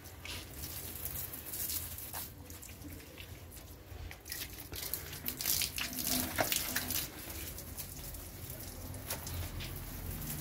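Water from a garden hose splashing and spattering onto potted plants and wet concrete, louder for a couple of seconds in the middle.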